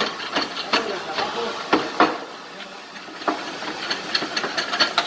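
Metal hand tools clinking and knocking against exhaust hardware: irregular sharp clanks and clicks, the loudest about two seconds in.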